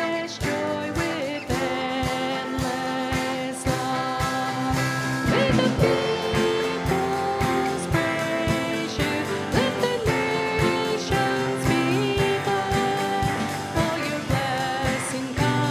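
Live worship band playing a hymn with a male lead singer, accompanied by acoustic guitar, piano, a second guitar and a drum kit keeping a steady beat.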